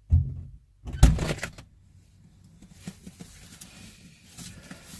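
A door thudding twice, once just at the start and louder about a second in with a short rattle, followed by faint shuffling and small knocks.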